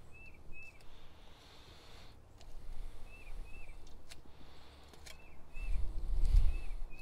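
A bird repeating a short two-note chirp, a pair every second or two, with a few light clicks of the fillet knife on the glass cutting board. A low rumble swells and fades about six seconds in and is the loudest sound.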